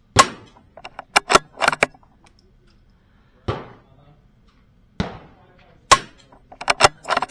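Two .22 rimfire rifle shots from a CZ 457 bolt-action, about six seconds apart, each sharp crack followed by a quick run of clicks as the bolt is cycled. Two softer knocks come in between.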